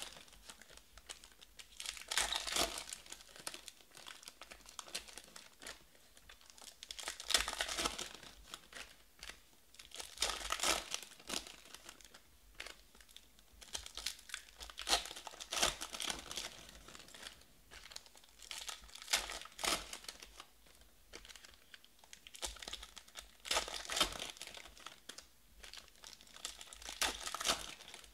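Foil trading-card pack wrappers crinkling and tearing open by hand, in repeated bursts every few seconds, with softer rustling of cards being thumbed through in between.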